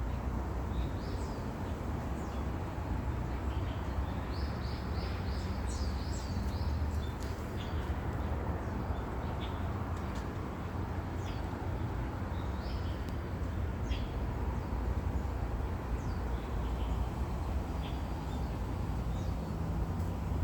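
Small birds chirping in short, repeated high calls, scattered throughout, over a steady low outdoor rumble.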